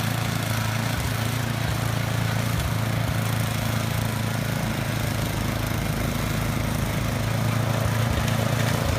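Snowblower engine running steadily under load, a constant hum with a wide rushing noise above it, getting a little louder near the end.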